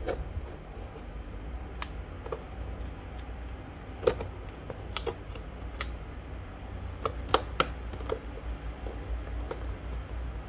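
Cardboard keyboard box being handled and opened from the bottom: a dozen or so sharp, irregular clicks and taps of packaging, over a steady low hum.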